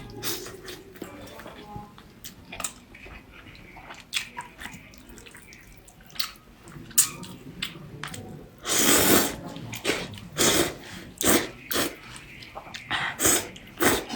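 Wet mouth noises of eating: slurping and smacking clicks, and from about nine seconds in a run of loud, sharp breathy bursts.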